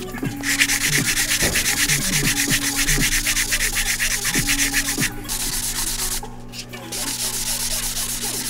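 Hand sanding the cast-iron deck of a BMW M50 engine block with a gritty sanding sponge: quick, rhythmic back-and-forth rubbing strokes, with a brief pause about six seconds in. The deck is being blocked smooth of old head-gasket residue.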